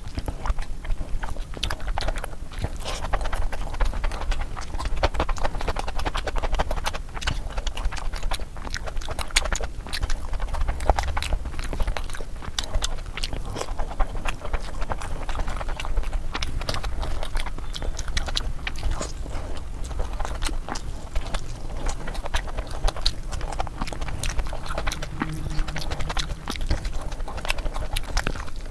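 A person eating close to the microphone, chewing oily mutton fat curry and puri: wet chewing with frequent, irregular mouth clicks and smacks.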